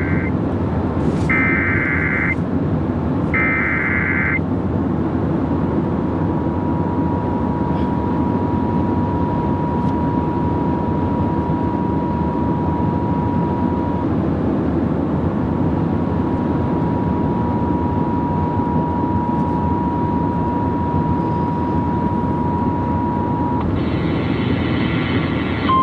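Emergency Alert System tones over a car radio, with steady road noise under them. The SAME header's warbling data bursts come first, then a long steady attention tone that breaks once, and another burst of mixed tones near the end.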